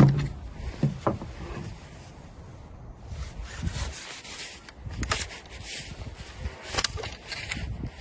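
Air rifle being handled on a wooden table: a sharp knock at the start, more knocks about a second in and again near 5 and 7 seconds, with rubbing and rustling of gloved hands against the gun in between.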